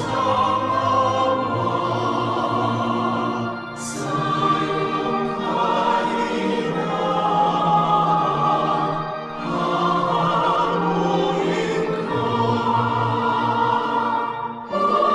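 Voices singing a Tagalog hymn together in long sustained phrases, with short breaks between phrases about every five seconds.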